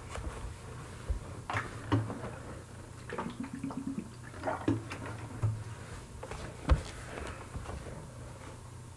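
A man drinking from a plastic water bottle: small handling clicks and swallowing, with one sharp knock about two-thirds of the way through.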